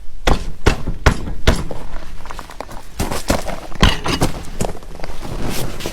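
Irregular knocks and thunks, about ten of them, as tools strike the old plow's metal parts around its carriage bolts.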